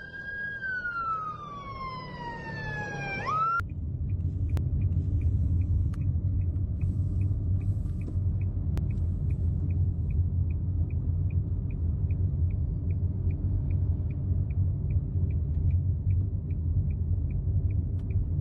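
An emergency vehicle siren wailing, its pitch sliding down and then rising sharply before it cuts off after about three and a half seconds. After it, a steady low rumble with a short high tick repeating about twice a second.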